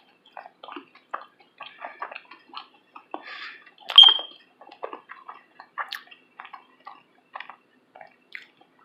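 Close-miked chewing of a soft honey bun: a quick, irregular string of small wet mouth clicks and lip smacks, with one louder, sharper click about four seconds in.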